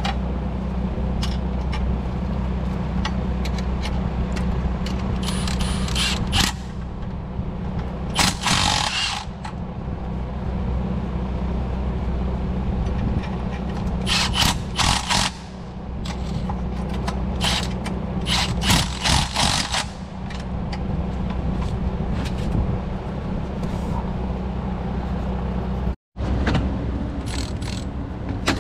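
Milwaukee cordless impact wrench running in several short bursts, the longest about a second, as it drives the bolts at the catalytic converter's exhaust flange, over a steady low hum.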